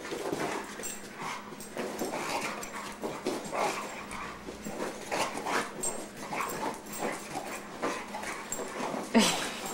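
Boxer dog vocalizing in short, irregular bursts while chasing a laser dot, with one sharp, louder sound about nine seconds in.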